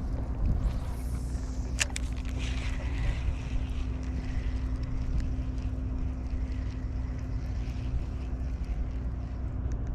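A steady low engine hum with wind noise on the microphone, and a couple of sharp clicks about two seconds in.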